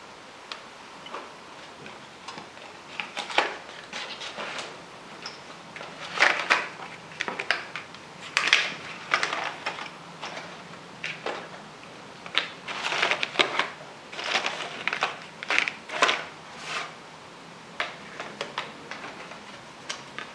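Stiff cardboard gift boxes and their lids being handled: irregular taps, knocks, scrapes and rustles, thickest through the middle.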